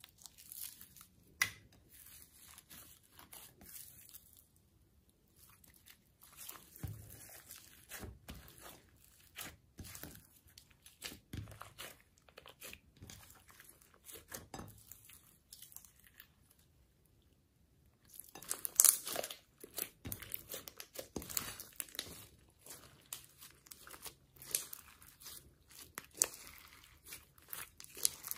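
Hands squishing and stretching glossy slime loaded with glitter, sequins and beads, making rapid sticky clicks and crackles. The clicking drops almost away for a couple of seconds past the middle, then comes back louder and denser.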